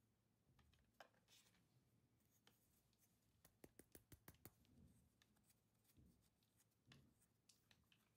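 Near silence, broken by a few faint clicks and taps from hands handling a small plastic Elmo toy figure and Play-Doh. There is one click about a second in and a quick run of clicks around the middle.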